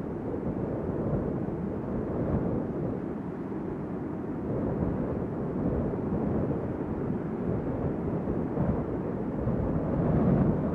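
Howling wind sound effect: a steady low rushing with slow gusts swelling and easing, and a stronger gust near the end.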